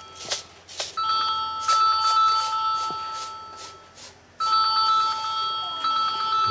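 A phone ringtone: several steady electronic tones sounding together, starting about a second in, breaking off briefly near four seconds and starting again. Sharp knocks are heard throughout.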